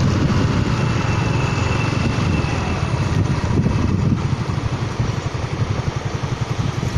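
An engine running, settling into an even, regular putter about four seconds in, as at idle.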